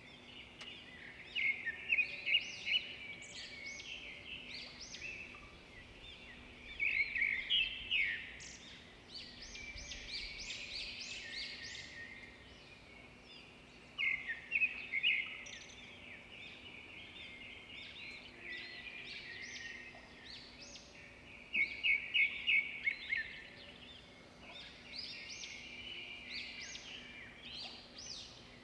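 Birds chirping, with bursts of rapid high chirps and trills every few seconds over a steady outdoor background noise.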